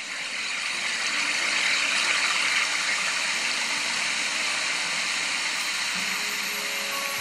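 White water rushing and churning over rocks in a small stream waterfall. It is a steady rush that swells over about the first second and then holds.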